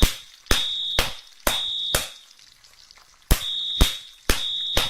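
Smoke alarm going off with a shrill, high-pitched beep in the standard three-beep pattern. Each beep lasts about half a second and comes a second apart, with a longer pause about two seconds in before the next set.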